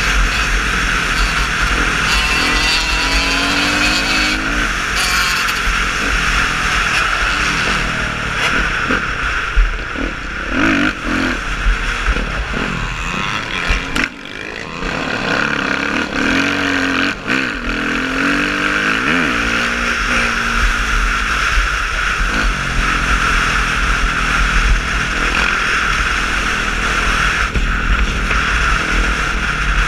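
Off-road motorcycle engine revving up and down as the rider accelerates and shifts on a gravel track, with wind rushing over a helmet-mounted camera. The throttle closes briefly about halfway through, then the engine picks up again.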